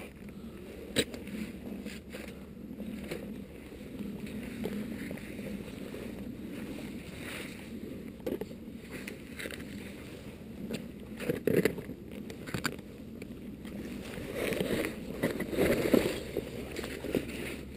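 Handling noise from a body-worn camera during a rock scramble: a steady low rumble with scattered knocks and scrapes against the rock. About fifteen seconds in, louder rubbing and bumps as the climber's jacket sleeve presses against the camera.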